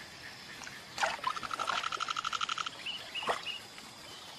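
A wildlife call: a rapid pulsed trill of about a dozen notes a second lasting about a second and a half. It is framed by two short, sharp falling calls, one just before it and one after.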